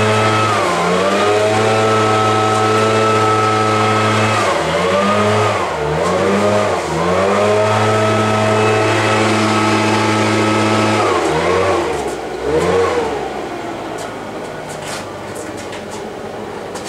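An engine runs at a steady pitch, drops and rises again several times as it is throttled back and opened up, then stops about thirteen seconds in.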